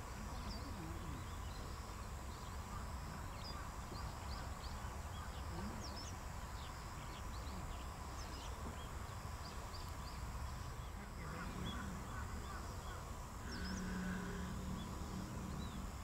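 Outdoor wetland ambience: a steady low rumble with many short, high bird chirps scattered throughout.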